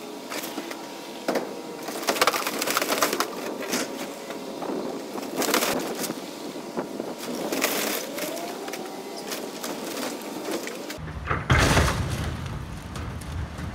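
An excavator bucket crushing a fiberglass underground fuel tank: repeated sharp cracks and crunching of the fiberglass as it breaks. The biggest cracking comes about two seconds in and again near the end.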